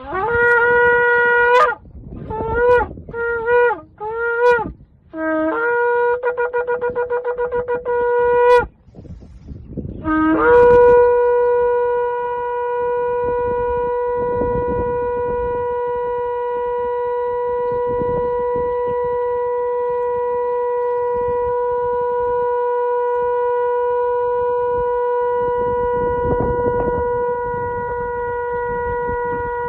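Shofar (ram's horn) blowing a sequence of calls. It opens with a short held tekiah, then a few short broken shevarim notes, then a rapid staccato teruah. About ten seconds in comes a very long, steady tekiah gedolah held to the end.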